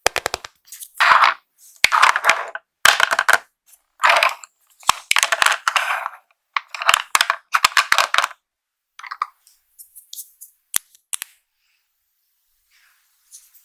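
Makeup packaging being handled and opened: short rustling bursts with sharp clicks and taps, thinning to a few scattered clicks after about eight seconds.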